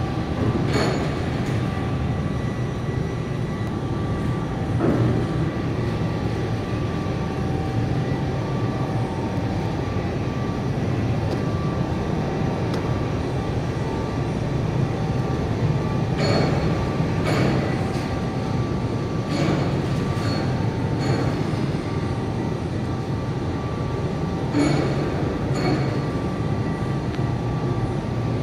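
Overhead crane running while it carries a glass sheet on a glass clamp: a steady rumble with a faint motor whine that comes and goes, and several sharp knocks along the way.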